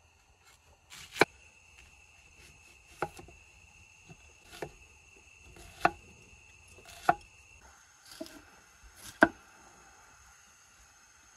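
Cleaver chopping vegetables on a wooden cutting board: about seven single sharp strikes, spaced a second or so apart.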